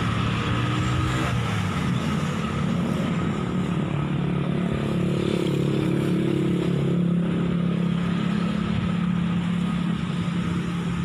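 Motor vehicle engine running steadily, its pitch slowly rising through the middle as it picks up speed, over a constant rumble of road noise.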